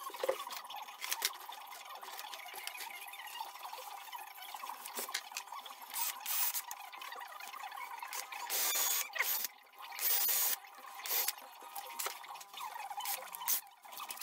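Workshop sounds of screwing a plywood piece together: a cordless drill/driver running in several short bursts, with clicks and knocks from bar clamps being handled.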